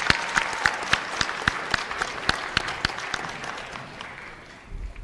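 Audience applauding, with a few loud, close claps standing out over the crowd. The applause dies away toward the end.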